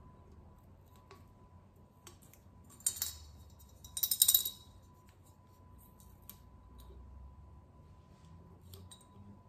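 A coin clinking and rattling inside a hand-held coin bank, in two short metallic bursts about three and four seconds in, with a few small clicks around them.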